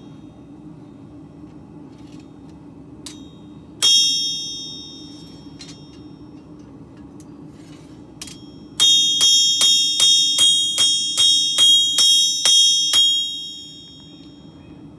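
Hand hammer striking steel on an anvil, each blow ringing: a faint tap, a single strike about four seconds in, then a quick run of about a dozen blows, roughly three a second, in the second half. A low steady hum runs underneath.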